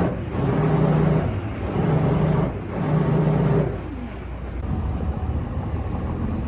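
Boat engine running, pulsing in four even surges about a second apart, then settling to a steadier, lower rumble.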